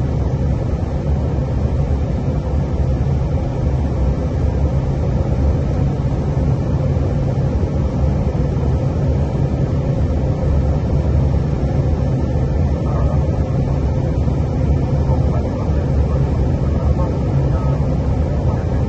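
Steady low rumble of airflow and engine noise inside an Airbus A320 cockpit on final approach.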